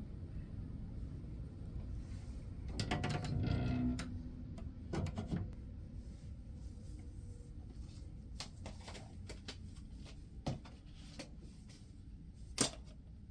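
Handling noises: a burst of rustling and knocking about three seconds in, a couple of knocks a second later, then scattered light clicks and one sharper click near the end.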